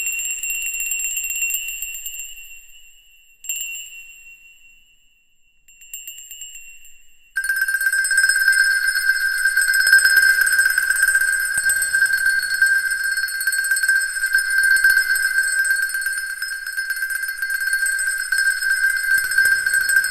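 Bell-like metallic tones in the performance's soundtrack: three high struck chimes, each ringing out and fading, then from about seven seconds in a single steady high ringing tone held without fading.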